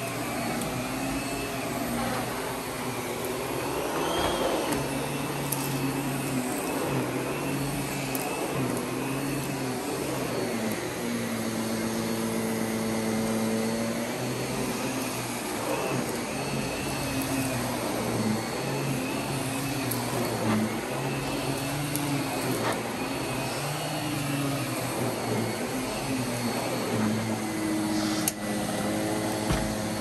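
Miele vacuum cleaner running continuously, its motor tone rising and falling every few seconds.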